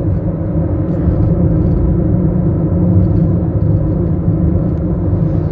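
Steady low rumble of a car driving along a highway, heard inside the cabin: tyre and engine noise with no sharp events.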